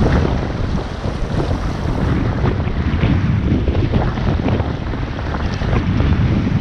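Wind buffeting an action camera's microphone with a heavy low rumble, over river water rushing and splashing close by.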